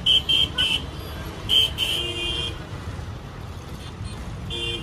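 Vehicle horns honking in city traffic: three quick short toots at the start, two longer honks about a second and a half in, and another brief honk near the end. Underneath runs the steady low rumble of the bus and road traffic.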